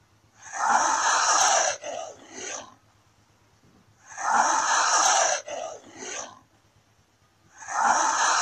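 Komodo dragon hissing: one long hiss of about a second followed by two short ones, the same pattern coming three times, about three and a half seconds apart.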